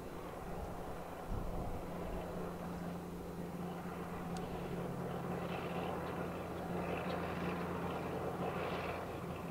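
Piper Turbo Arrow IV's turbocharged six-cylinder engine and propeller running steadily at low taxi power, a low even drone.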